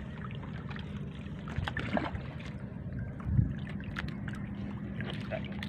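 Small outrigger boat with a steady low engine hum and water sloshing, with scattered small knocks as a fishing line is hauled in by hand; a single low thump about three and a half seconds in.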